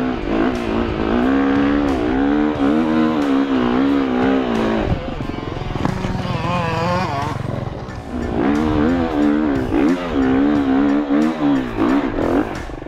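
KTM 350 SX-F's single-cylinder four-stroke engine being revved up and down over and over as the dirt bike climbs rough ground, with the engine note dipping briefly a couple of times and scattered knocks from the bike bouncing over the terrain.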